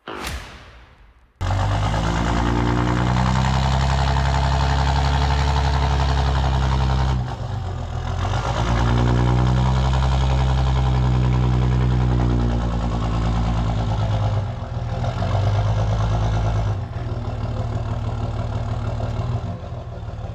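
Diesel truck engine pulling under load, its pitch climbing and levelling off in long swells, with breaks about 7 and 14 seconds in like gear changes. It cuts in abruptly just after a short whoosh.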